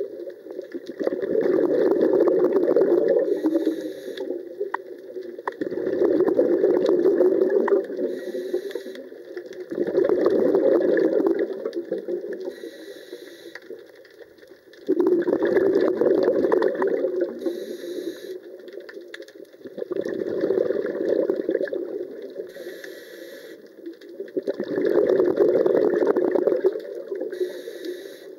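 Scuba diver breathing through a regulator underwater: six exhalations, each a bubbling rush lasting two to three seconds, at about five-second intervals, with a short high hiss of inhalation in the gaps between.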